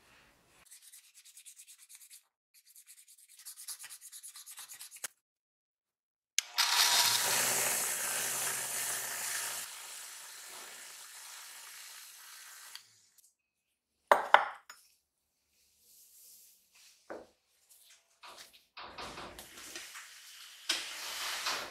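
Sewn cotton buffing wheel on a polishing motor, with a blowtorch's metal burner tube pressed against it: a loud rubbing hiss over a low motor hum that starts suddenly about six seconds in and fades away over the next six seconds. Shorter spells of rubbing come before and after it, with a few sharp knocks.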